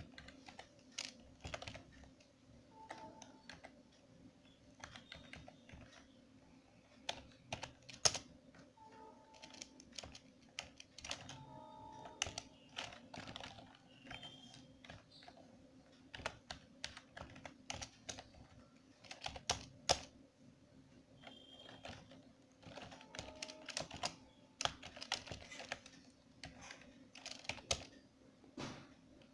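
Computer keyboard typing in irregular bursts of keystrokes, over a faint steady hum.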